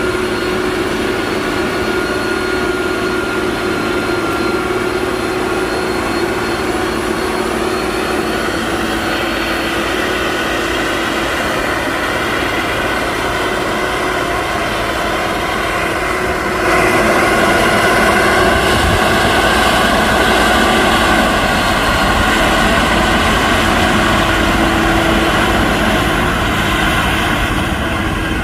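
Heavy diesel engine of road-construction machinery running steadily under load, with a high whine over the engine note. It gets suddenly louder about two-thirds of the way through.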